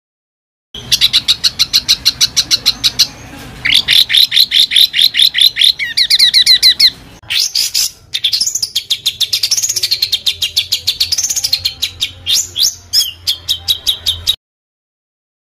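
A songbird sings harsh, rapid-fire phrases of sharp repeated notes, about ten a second. After a short break they give way to mixed notes and whistles that rise and fall. This is recorded tutor song of the rough 'tembakan' kind; it starts about a second in and cuts off abruptly about a second before the end.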